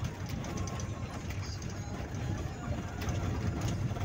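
Vehicle driving over a rough road, heard from inside the cab: a steady low engine and road rumble with continual rattling and clatter.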